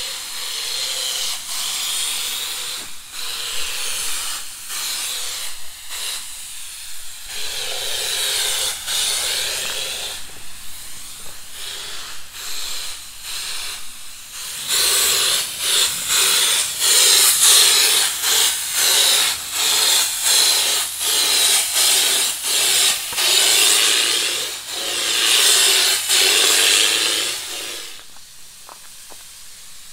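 Bedliner spray gun hissing as it sprays LinerExtreeme spray-on bedliner, the trigger pulled in short bursts with brief breaks, louder in the second half. It stops near the end.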